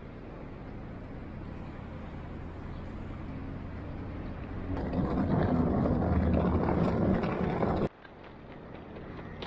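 Road traffic: a steady rumble of passing vehicles with a low engine hum. It grows louder about halfway through and cuts off suddenly near the end.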